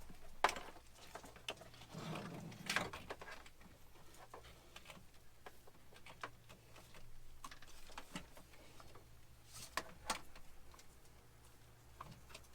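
Scattered light clicks and taps of cables and parts being handled, the loudest about three seconds in and again near ten seconds, over a faint steady low hum.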